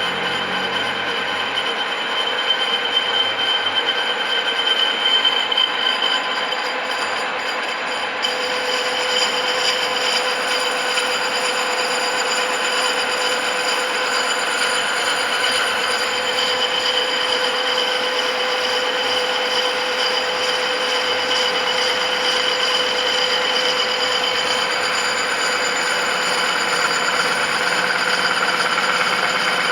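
CNC machine cutting a metal part with a loud, steady ringing squeal held at several pitches. The ringing comes from the hole already machined in the part, which the operator says makes it sound loud.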